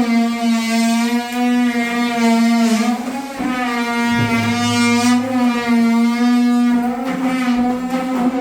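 A power tool's motor running at a steady pitch with a buzzing hum, sagging slightly a few times as if under load.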